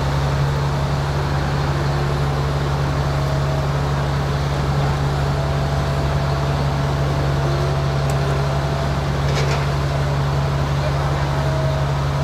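Heavy engine running steadily with an even low drone while a train bogie hangs from crane slings; a brief clank about nine seconds in.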